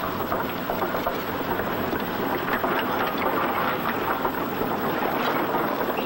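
High-sprocket crawler tractor rolling free off its tracks with no operator, a steady dense rattle and clatter of loose steel.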